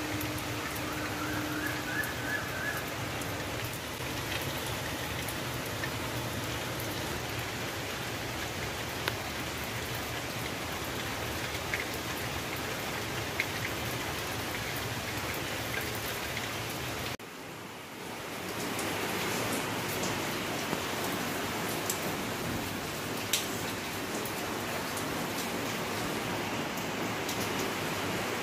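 Heavy rain falling steadily on concrete and leaves, with scattered sharper drops standing out from the hiss. The rain sound dips briefly about two-thirds of the way through, then comes back as before.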